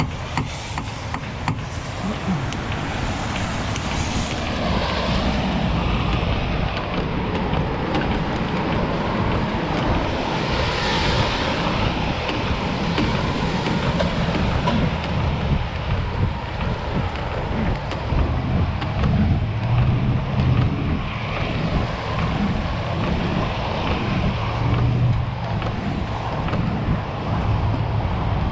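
Steady noise of freeway traffic on a wet road. Tyres hiss through the water, swelling as vehicles pass, over a continuous low rumble.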